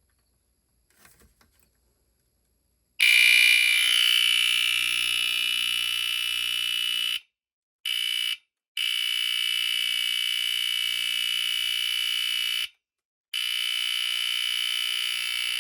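BRK 1769 AC-I smoke alarm sounding on its test button: a few faint clicks about a second in, then a loud, steady alarm tone from about three seconds in, loudest at its start. It cuts out briefly three times.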